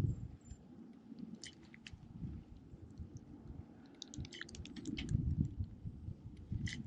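Fishing reel being cranked during a lure retrieve: an uneven low rumble with scattered sharp clicks, busiest in the second half.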